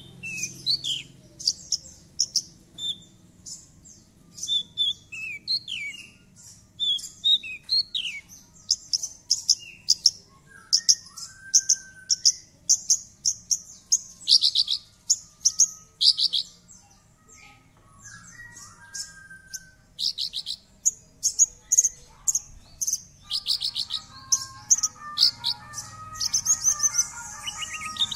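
Horsfield's bush lark (branjangan) singing: a fast, unbroken run of high chirps and short rattling trills, with falling slurred notes in the first few seconds. A lower layer of quick warbling notes joins near the end.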